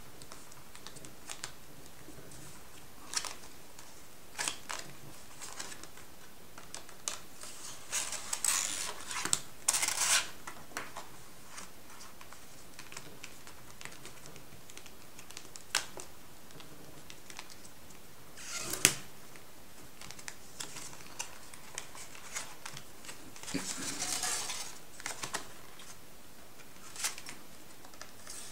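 Metallised foil paper being folded and creased by hand: scattered crisp clicks and short crinkling rustles, with two longer stretches of crinkling, one about a third of the way in and one near the end.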